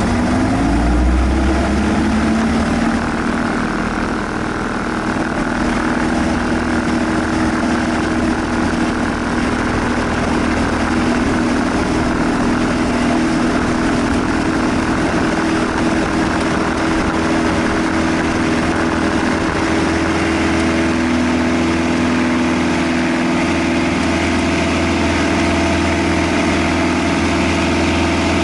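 Cessna 172 seaplane's piston engine and propeller running. The pitch climbs over the first couple of seconds, then holds steady.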